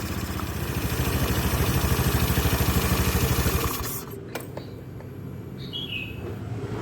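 A scooter's electric starter motor spinning the engine with a rapid, even pulsing that grows louder for about three and a half seconds and then dies away, followed by two short clicks. This is the strange starter noise that is typically caused by a starter motor running dry inside, without grease on its shaft and bushing.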